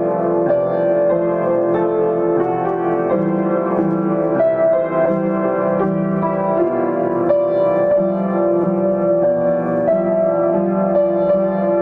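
Solo piano playing a slow, gentle piece, with sustained chords and a melody over them and no voice.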